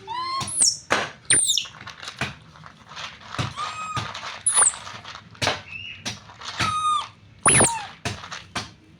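Baby monkey squealing in short high-pitched calls, some held briefly and some gliding sharply downward, with light clicks and taps between them.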